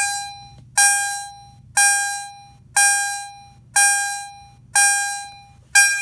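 Fire alarm chime sounding a single tone about once a second, each one starting sharply and fading away. It is going off because the FCI FC-72 fire alarm panel has zone 3 in alarm.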